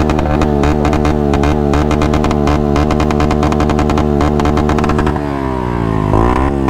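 Motorcycle engine revved up and held at high revs for about five seconds, then the revs fall away, with one short blip of the throttle near the end.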